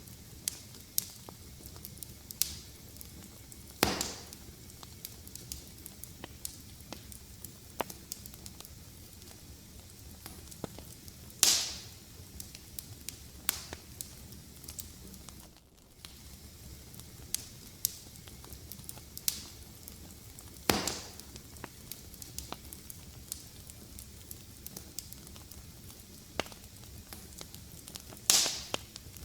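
Fireplace fire crackling: a steady low hiss with frequent small sharp clicks and a louder pop about every seven to ten seconds, four in all.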